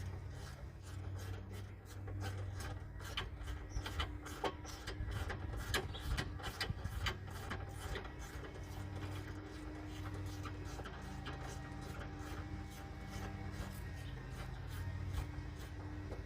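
Hand tools clicking and clattering against metal parts during car disassembly: a run of quick irregular clicks, busiest in the middle, over a steady low hum.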